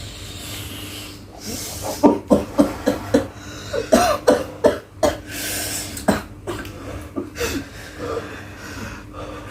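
Hard, repeated coughing in irregular fits, with breathy gasps between, brought on by a lungful of icy-cold vape.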